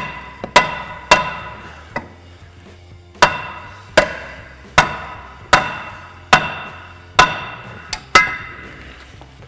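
Hammer blows on a seized steel rear brake rotor, about a dozen sharp ringing strikes, coming evenly about one a second in the second half, to knock the rotor loose from the hub where it is rusted on and caught on the parking brake shoes.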